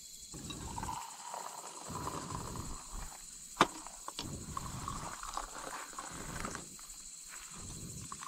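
Hot milk tea poured from a camping kettle into steel cups, the stream heard in stretches, with gusts of wind buffeting the microphone. A single sharp click comes about three and a half seconds in.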